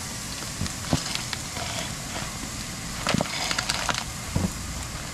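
Corn sizzling steadily as it fries in a pan, with a few knocks and crunches from a half-frozen carton of broth being squeezed and tipped over a measuring cup.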